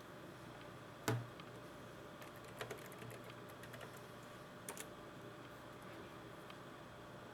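Scattered clicks of computer keys being pressed, in a few short runs, with one sharper knock about a second in.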